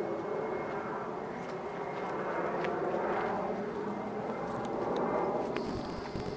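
Street traffic: the steady drone of motor vehicles, with one passing by and swelling then fading about three seconds in.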